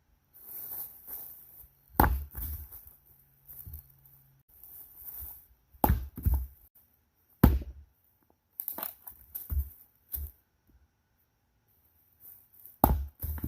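Cherry wood being split and handled: sharp cracks and knocks about 2, 6, 7.5 and 13 seconds in, with bursts of rustling, tearing noise between them.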